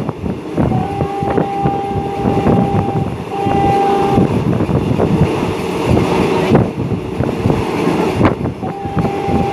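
Alsthom diesel-electric locomotive's horn sounding a long blast, then a short one, then another long blast beginning near the end, over the constant rumble and clatter of the moving train's wheels on the rails, heard from inside a passenger carriage.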